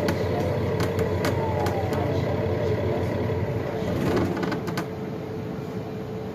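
Cabin sound of a 2021 Nova Bus LFS hybrid city bus under way: a steady drive hum with a constant tone, with clicks and rattles in the first second and again about four seconds in. It grows quieter about five seconds in.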